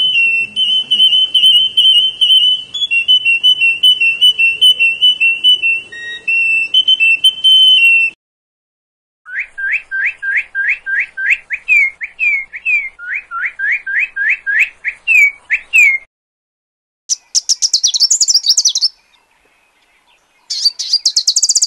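Three bird recordings in turn. First a domestic canary sings a fast rolling trilled song for about eight seconds. After a short gap a northern cardinal sings a run of quick rising slurred whistles, and near the end a sunbird gives two short bursts of high, rapid chittering calls.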